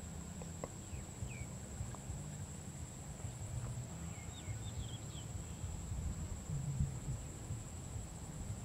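Rural field ambience: a steady, high-pitched insect drone, with a few short bird chirps in the middle and a low rumble of wind underneath.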